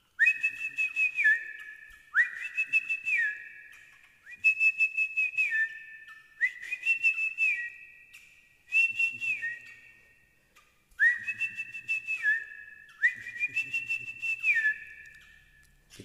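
A bird-calling (celok) whistle recording played from a phone, repeating the same two-tone whistled phrase seven times, about every two seconds. Each phrase lasts about a second and a half, slides up at the start and drops at the end, with a faint clicking in it.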